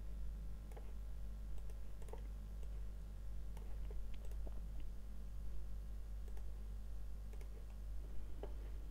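Scattered, irregular faint clicks of a computer mouse, over a steady low hum.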